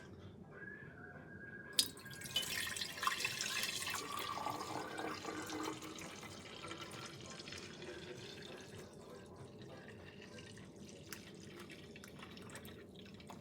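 Coffee poured from a glass carafe into a glass mason jar: a sharp clink just under two seconds in, then liquid pouring for about four seconds, easing into a quieter trickle.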